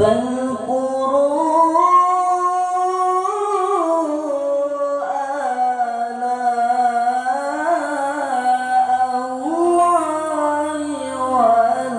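Teenage boy reciting the Qur'an in the melodic, drawn-out tilawah style, amplified through a microphone and sound system. After a brief pause the voice sets in with long held notes that glide up and down in pitch.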